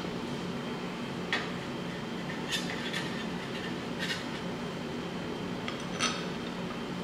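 Light metallic clicks and clinks of small bolts being handled and set into an aluminium engine case by hand, about half a dozen scattered ticks over a steady low background hum.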